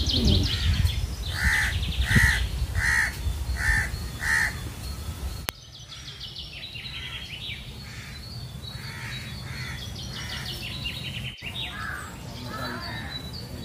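Crows cawing: a run of about six caws a little under a second apart over a low rumble, then after a sudden change about five seconds in, fainter scattered caws with small birds chirping high trills.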